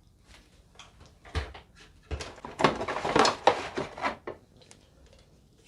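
Plastic vacuum parts and packaging being handled: a few light clicks, then about two seconds in a dense stretch of rustling and clattering that lasts about two seconds.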